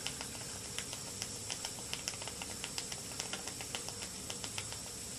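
Small model steam engine with a vertical boiler running slowly: light, quick ticks and clicks, several a second and a little uneven, over a faint steady hiss from the boiler.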